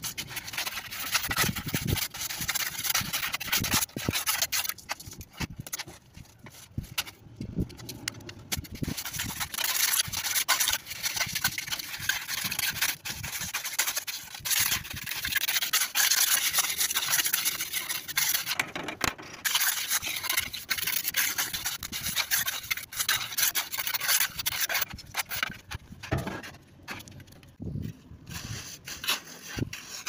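A flat steel trowel scraping and rubbing over wet concrete as it is spread and smoothed in a steel slab mould, in many short, irregular strokes, with a couple of brief pauses.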